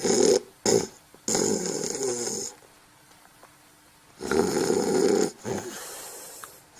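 Snoring: two short snorts, then a drawn-out snore lasting just over a second. After a quiet pause, another loud snore starts about four seconds in and tails off more faintly.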